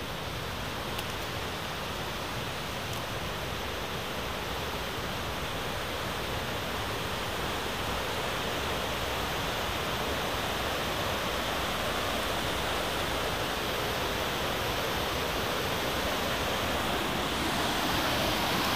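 Whitewater cascade rushing over granite slabs: a steady water roar that grows gradually louder.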